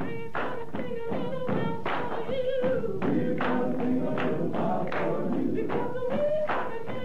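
Singing voices over a steady rhythmic beat of sharp claps or strikes, about two to three a second.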